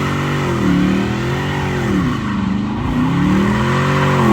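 Dodge Charger R/T's Hemi V8 through a loud aftermarket exhaust, its revs rising and falling about three times.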